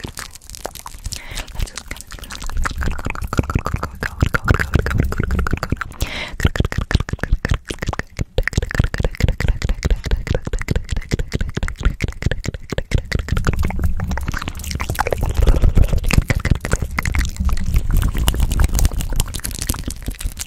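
Fast, wet mouth sounds right against a microphone: a dense run of clicks and smacks, with low thumps and rustles from hands moving quickly around the mic.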